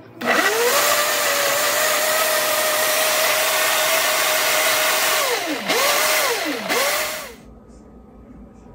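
Blender motor blending a fruit smoothie: it spins up, runs at a steady speed for about five seconds, then slows and is pulsed twice briefly before switching off.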